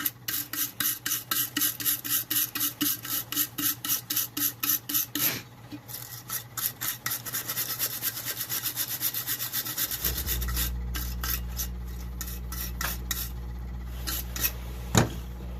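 Rapid back-and-forth scrubbing of a Hella Supertone horn's electrical terminal with an abrasive to clean off white corrosion, about four strokes a second, then quicker and fainter. A steady low hum comes in about two-thirds of the way through, with only a few strokes after it.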